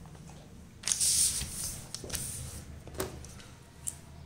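A sheet of paper rustling as it is slid and turned on a tabletop, loudest about a second in, followed by a few light taps.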